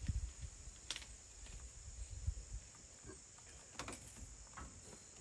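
Crickets chirping steadily in the background, with a few short sharp clicks and some low rumbling in the first couple of seconds.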